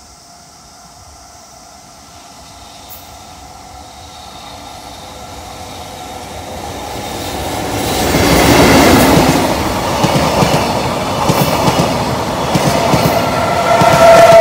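JR Freight EF65 2000-series electric locomotive hauling a train of empty Koki container flatcars past at speed. The rumble builds as it approaches and is loudest as the locomotive goes by about eight seconds in. The flatcars then roll past with repeated clacks of wheels over rail joints, and a steady squeal grows louder near the end.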